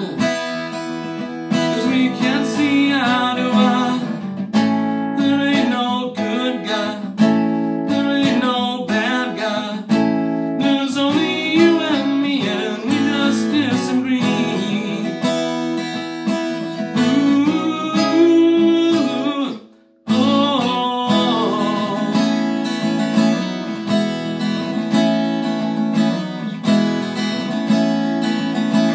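Solo acoustic guitar, strummed chords with picked melody notes. The playing breaks off for a moment about twenty seconds in, then resumes.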